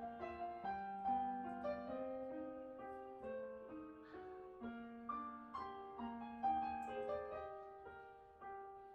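Background piano music: a melody of single held notes over sustained lower notes.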